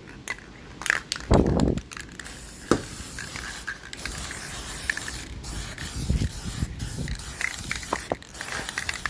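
Aerosol spray paint can hissing in a series of passes with short breaks between them, laying down a final light coat. A dull low bump sounds about a second and a half in.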